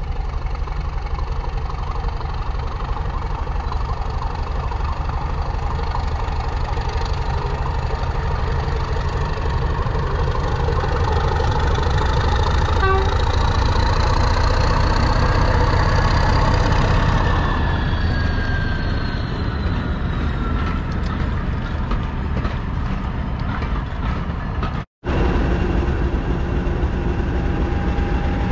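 Diesel locomotive engine running under power with a heavy low rumble, growing louder and then easing off about two-thirds through, with a whine that rises and then falls in pitch. The sound breaks off for an instant near the end.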